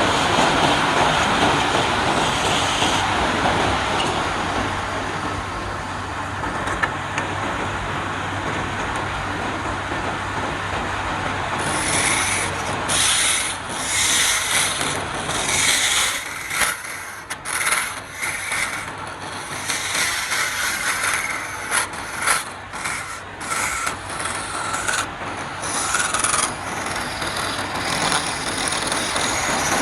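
Wood lathe running with a steady hum, while a turning tool scrapes and cuts the spinning wood. From about twelve seconds in, the cutting comes in short stop-start passes.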